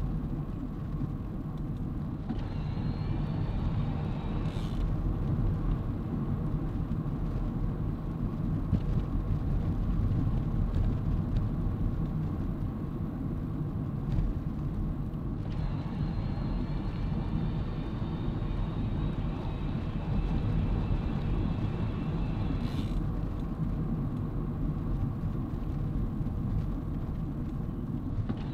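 Bicycle tyres rolling on a tarmac road, with wind buffeting the fur-covered microphone: a steady low rumble. A faint thin whine, rising slightly in pitch, comes in twice for a few seconds.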